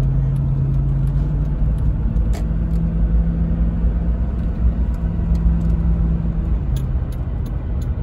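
1995 Land Rover Discovery 1 heard from inside the cabin while driving: a steady engine and road rumble. The engine note rises about two seconds in and drops again near the end.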